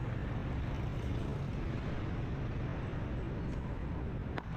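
Steady traffic and road noise heard from a moving vehicle on a city street, a low rumble of engines and tyres with no single source standing out. A short sharp click sounds near the end.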